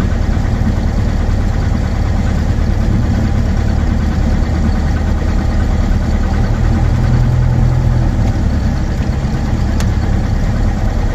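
Cessna 172's piston engine and propeller running at low, near-idle power during the rollout after landing, heard from inside the cockpit. The engine note steps up briefly about six and a half seconds in, then settles back.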